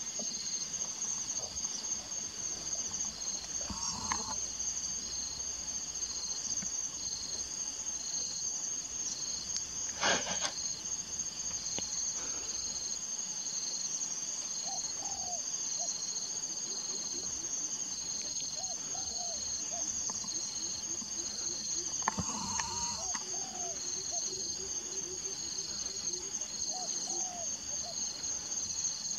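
Steady high-pitched insect chorus, crickets and the like, with a second insect pulsing about once a second beneath it. A few faint bird chirps, and a single short sharp sound about ten seconds in.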